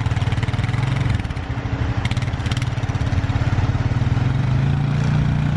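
ATV engine running steadily as the four-wheeler plows snow, its engine speed picking up a little about four and a half seconds in.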